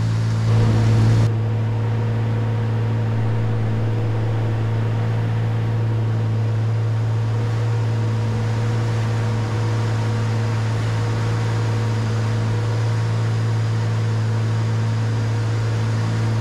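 Cessna 310Q twin-engine plane's propeller engines droning steadily in flight, heard inside the cockpit: a strong deep hum with a few fainter steady tones above it. A brief louder rush of noise comes about half a second in.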